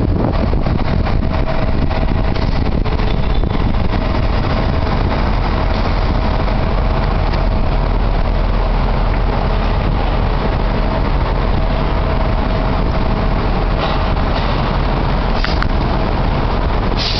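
2009 Orion VII Next Generation diesel-electric hybrid city bus running at a stop: a steady low drone with a faint steady high whine over it, and a couple of short hisses near the end.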